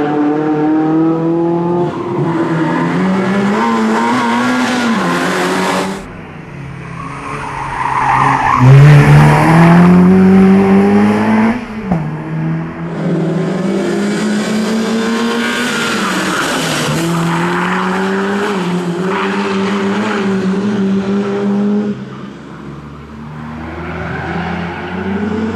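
BMW E30 318is's four-cylinder 16-valve engine driven hard, its revs climbing and falling as it runs through the gears. The level drops sharply about six seconds in and again near the end as the engine comes off the throttle, with the loudest stretch, a steep climb in revs, soon after the first drop.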